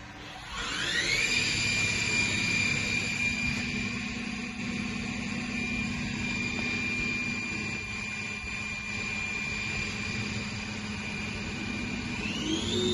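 The YCM NMV106A machining center's spindle winds up to speed about half a second in, a whine rising in pitch that settles into a steady high whine. Near the end it climbs again to a higher steady speed.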